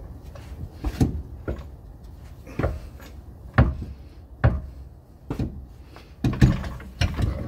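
BMW E46 rear differential being rocked and worked loose by hand, its heavy housing knocking and clunking against the subframe and mounts in about seven irregular thumps.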